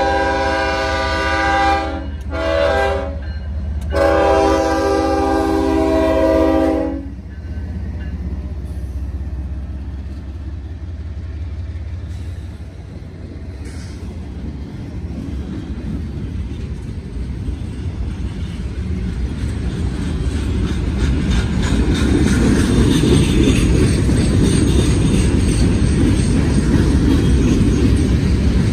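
A diesel locomotive's multi-tone horn blowing for the grade crossing: the end of one blast, a short blast, then a longer blast ending about seven seconds in. After that, freight cars roll past with a steady rumble and a clatter of wheels on the rails that grows louder toward the end.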